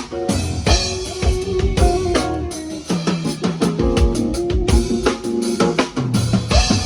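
Music played through a stadium sound system during a sound check: a steady drum kit beat with bass drum and snare, under held keyboard notes and a bass line that step between pitches.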